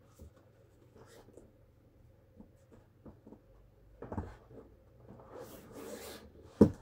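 Vinyl of a partly inflated pony toy being handled and rustled on a wooden floor, with scattered light handling sounds, a soft bump about four seconds in and a sharp knock near the end.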